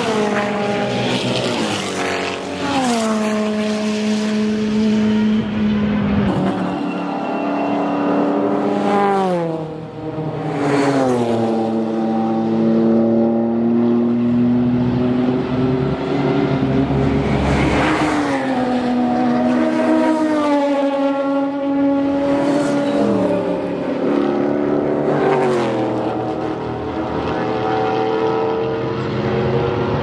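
Several race car engines passing in turn, each dropping in pitch as it brakes and downshifts, then climbing again as it accelerates away; among them are Porsche 911 Cup cars.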